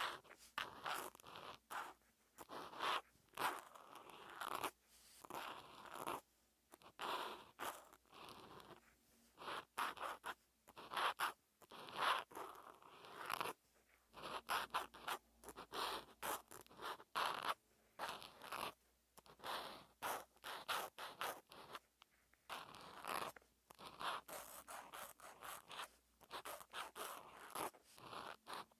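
Felt-tip marker scratching across lined paper in a run of short handwriting strokes, with brief pauses between characters.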